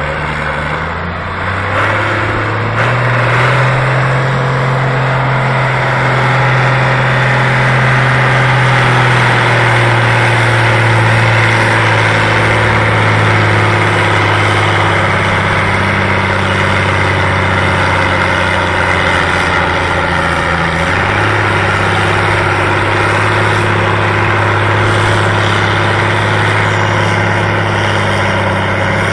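Farm tractor's diesel engine running hard under heavy load as it pulls a weight-transfer sled. A loud, steady drone that rises in pitch about two seconds in and drops slightly about twenty seconds in.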